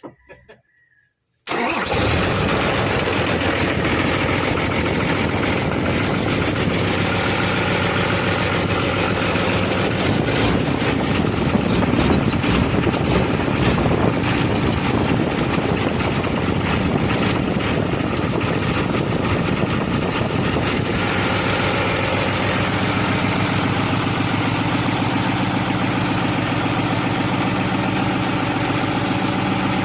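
Isuzu 6HK1 inline-six diesel engine cranking on the starter and failing to start: a continuous rapid pulsing that begins suddenly about a second and a half in. Its tone changes about twenty seconds in.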